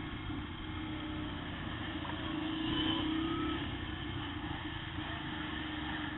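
Yamaha TT-R125 dirt bike's four-stroke single-cylinder engine running at a fairly steady throttle, its pitch wavering slightly as it rides along the trail.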